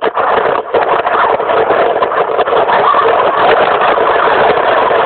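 A vehicle driving, heard as a loud, steady rushing noise with no clear engine note. It drops out briefly right at the start and again just under a second in.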